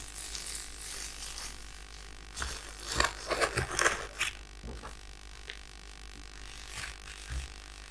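Cardboard packaging and a paper guide being handled on a table: rustling and light knocks, busiest from about two and a half to four seconds in, over a low steady hum.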